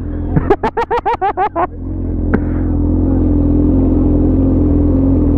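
Motorcycle engines running steadily at idle close by, a low, even hum. In the first couple of seconds a quick run of about eight short pitched pulses, like a voice, sounds over it.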